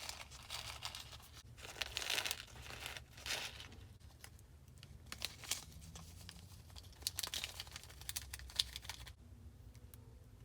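Icing slime being handled, giving irregular bursts of sticky crackling and tearing sounds with small pops, which stop about nine seconds in.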